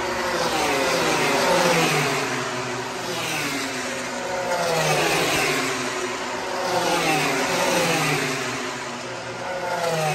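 MotoGP race bikes going past one after another, each engine's note dropping in pitch as it passes; several passes swell and fade in turn.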